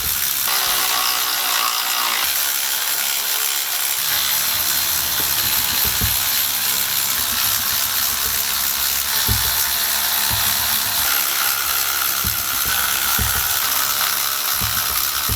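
Ratchet wrench clicking rapidly and steadily while engine parts are worked loose, with a few dull knocks.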